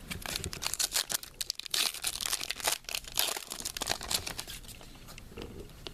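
Crinkling and tearing of a trading-card pack wrapper as it is opened, a rapid run of crackles for about four seconds that thins out toward the end.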